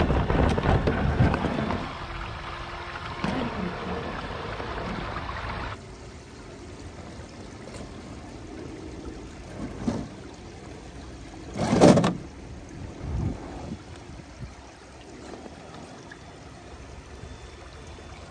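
Axial SCX6 1/6-scale RC crawler working over rocks, its ESC and cooling fan humming, with a shallow creek's running water beneath. Louder for the first several seconds, then quieter, with a short sharp knock about twelve seconds in.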